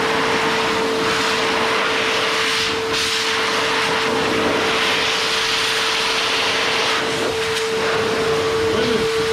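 Adam's Air Cannon car dryer blowing through its hose and flat nozzle: a steady motor whine under a loud rush of air that swells and eases.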